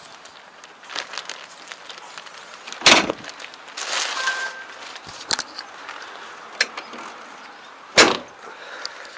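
Two loud thumps about five seconds apart, with lighter clicks and rustling between, from a hand on a John Deere tractor's cab and its door grab handle.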